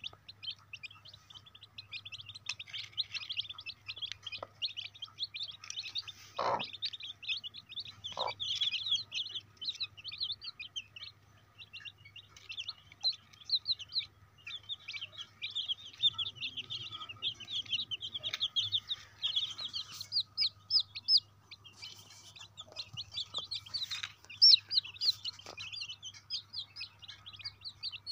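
A brood of young chicks peeping continuously, a dense run of rapid high chirps from many birds at once. There are a couple of soft thumps about six and eight seconds in, over a faint steady low hum.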